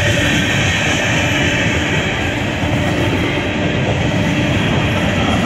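Empty coal cars of a freight train rolling past at close range: a steady, loud noise of steel wheels running on the rails.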